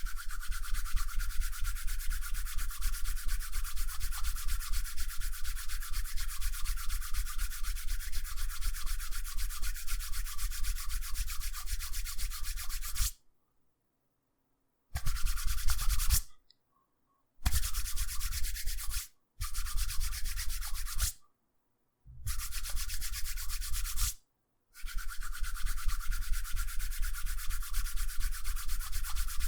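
Two hands rubbed briskly together, fast back-and-forth strokes of skin on skin. The rubbing runs unbroken for about thirteen seconds, then stops and restarts several times in short bouts with brief silences between, and runs steadily again for the last few seconds.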